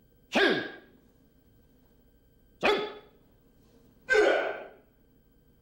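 A karateka's voice: three short, sharp shouted exhalations, one with each technique of a Kyokushin kata. Each starts suddenly, falls in pitch and dies away within about half a second, and they come roughly one and a half to two seconds apart.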